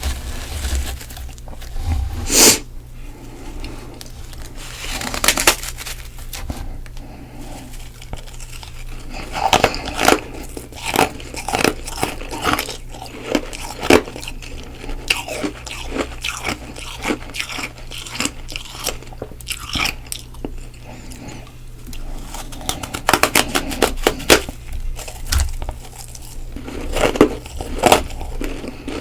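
Freezer frost being bitten and chewed close to the microphone: irregular crisp crunches, with a loud one about two seconds in and thick clusters of crunches near the end.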